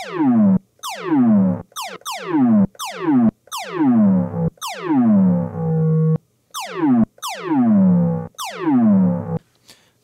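Synthesized sci-fi laser-blaster 'pew' shots from the iZotope Iris 2 subtractive synth, built on a wood-creaking sample. About a dozen shots come in quick succession, each a pitch diving from very high to low, and one about five seconds in is held a little longer.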